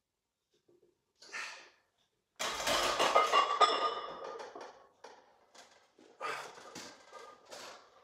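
A barbell bench-press set on a home weight bench: sharp breaths of effort and knocks of the bar and bench. The loudest is a sudden burst about two and a half seconds in that rings on and fades over a second or so, with a cluster of shorter knocks near the end as the bar is racked.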